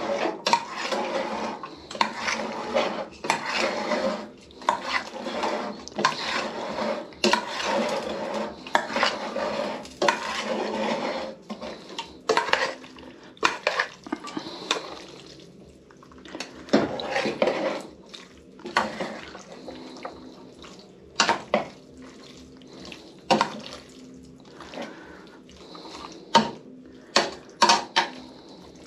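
Metal utensils stirring and scraping against the side of a stainless steel pot while a chopped fish-and-vegetable salad is tossed. Dense, continuous scraping and clatter for about the first twelve seconds, then scattered single clinks and knocks.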